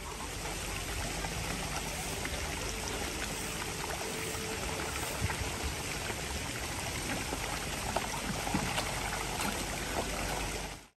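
Steady sound of running, splashing water, with a few faint ticks over it.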